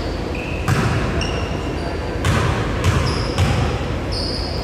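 A basketball bouncing during play, a few separate bounces at an uneven pace, with short high squeaks between them.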